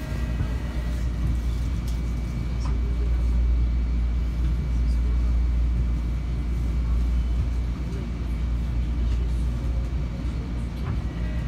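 Interior noise of a Metro-North M7 electric railcar under way: a steady low rumble of the running gear, with a faint high whine and a few light clicks.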